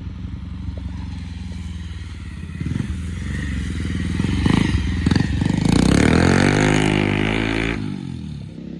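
Motorcycle engine running as the bike rides up, passes close by and pulls away; it is loudest about five to seven seconds in, its pitch falls as it goes past, and it fades near the end.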